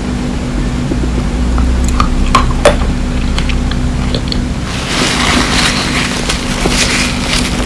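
Close-up crunching and chewing of candy grapes, grapes in a hard sugar-candy shell. There are a few sharp cracks about two seconds in, then denser crunching from about five seconds in, over a steady low hum.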